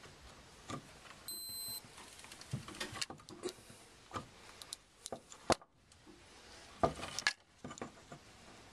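Hand crimping and stripping pliers clicking and snapping as a crimp terminal is worked onto a wire end, in a string of sharp clicks with the loudest snaps a little past the middle. A short high electronic beep sounds about a second and a half in.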